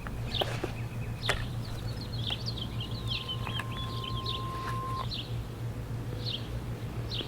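Birds chirping in short repeated calls, busiest in the middle, over a steady low hum. Two sharp clicks come in the first second and a half, and a faint steady tone sounds for about two seconds midway.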